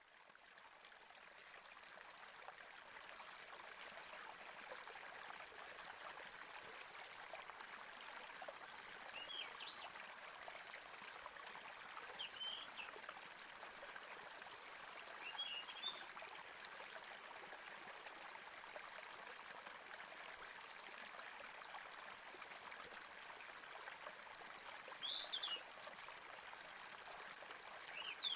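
Faint, steady water ambience, a trickling, stream-like wash, with a few short high bird chirps scattered through it.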